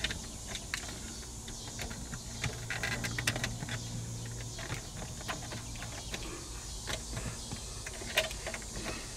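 Scattered light clicks and rattles of hands working at plastic wiring connectors and trim behind a car dashboard. A faint low hum runs for a few seconds in the middle.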